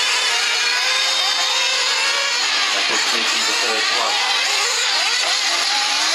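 Several 1/8-scale nitro RC cars racing together, their small engines revving up and down in a dense, overlapping drone that rises and falls as they accelerate and brake around the track.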